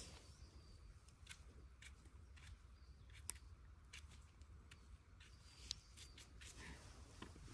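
Faint, scattered sharp clicks and snips of a small blade trimming freshly picked wild mushrooms.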